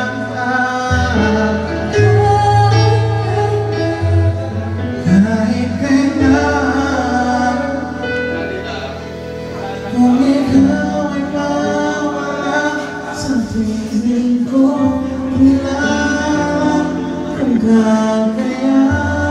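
Live band music: a singer over keyboard accompaniment, with steady bass notes that change every second or two.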